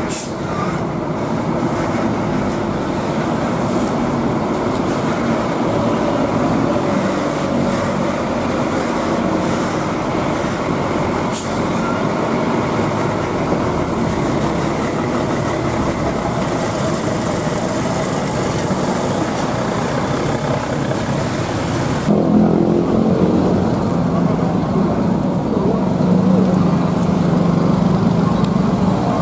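A coach's diesel engine running as the bus pulls slowly past close by, with a brief high hiss about eleven seconds in. About 22 seconds in the sound cuts to a different bus engine running steadily with a deep, even note.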